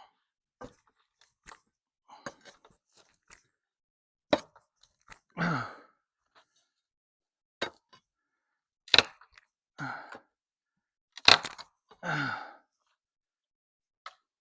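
Three loud sharp blows on the old wooden corral boards as they are knocked loose, each followed by a short grunt from the worker, with lighter knocks and cracks of wood between.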